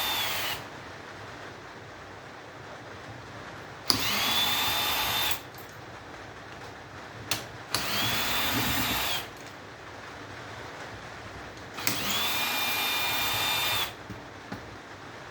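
Electric drill driving out brass screws from a large circuit breaker, run in short bursts: the tail of one run at the start, then three runs of about one and a half to two seconds, each spinning up to a steady whine. A few clicks fall in the pauses between runs. The drill is short of power for the job.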